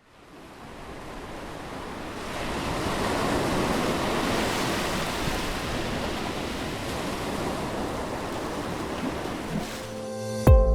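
Ocean surf washing in a steady rush, fading in from silence over the first couple of seconds. Music with a strong beat cuts in right at the end.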